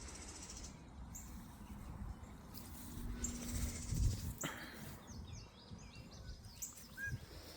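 Wild birds chirping and calling: many short, high chirps and whistles scattered throughout, thickest in the second half, over a low background rumble that swells briefly about three to four seconds in.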